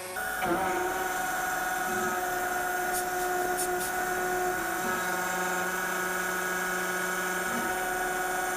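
Router CNC spindle at 10,000 rpm driving a 1/8-inch endmill through a roughing contour pass in an aluminum plate: a steady whine with cutting noise.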